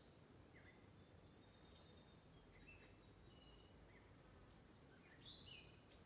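Faint outdoor ambience with birds chirping now and then: a scattering of short, high chirps over a low background hiss.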